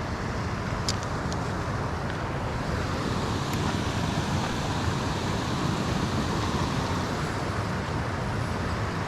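Steady rushing outdoor noise with a few faint ticks a little after a second in.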